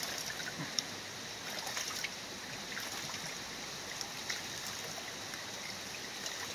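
Sulfuric acid electrolyte trickling steadily out of an upturned 12-volt lead-acid car battery into a plastic tub as the battery is drained, with a few light ticks.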